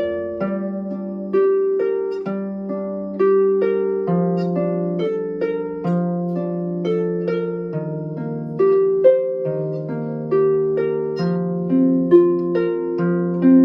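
Solo harp playing a gentle plucked melody over lower bass notes, each note ringing on as it fades, at an even pace of about two notes a second.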